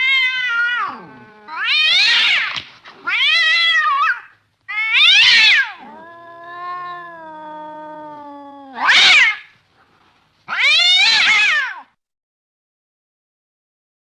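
A domestic cat meowing and caterwauling in a string of about seven loud, drawn-out calls. In the middle is one longer, lower, steadier wail.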